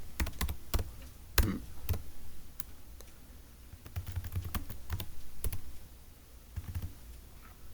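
Computer keyboard typing: scattered, irregular key clicks and taps, likely digits being entered into the Sudoku grid, with a few soft low thumps around the middle.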